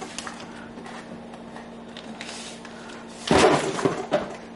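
Packets and jars knocking and rustling as someone rummages on a crowded kitchen cupboard shelf, with a sudden loud clatter about three seconds in as something nearly falls.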